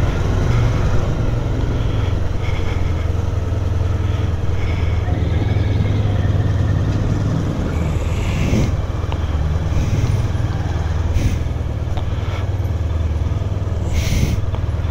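Motorcycle engine running steadily as the bike is ridden, a constant low hum, with brief hissing bursts about eight and fourteen seconds in.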